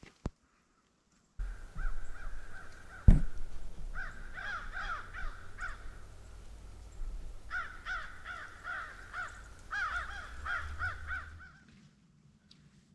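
Crows cawing in quick repeated runs of harsh calls, over a low rumble. A single sharp loud knock comes about three seconds in.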